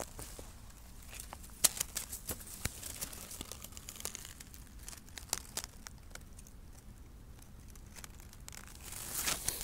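Dry pine-needle litter and twigs crackling and rustling as they are disturbed, with scattered sharp snaps and a denser rustle near the end.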